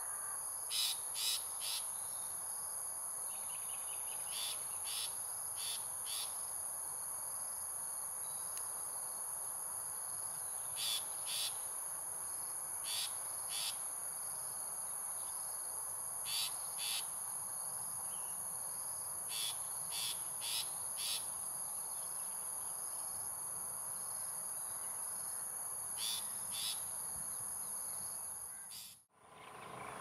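Long-tailed shrike giving short harsh calls in pairs and small runs every few seconds, over a steady high-pitched drone of insects. The sound drops out briefly near the end.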